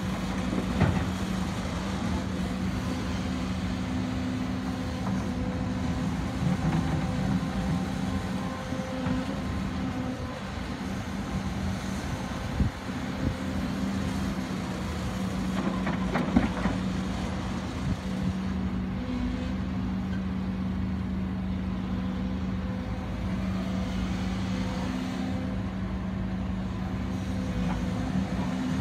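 Hidromek HMK230 H4 crawler excavator's diesel engine running steadily under load while it digs and loads a truck, with a few sharp knocks of rock and earth dropping into a steel dump-truck bed, the loudest about a second in and again a little past the middle.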